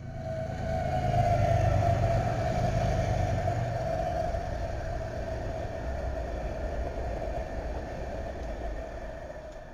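Several BNSF diesel-electric locomotives passing close at speed. The engines rumble, loudest about a second in, and a steady whine runs over them, both easing as the units go by.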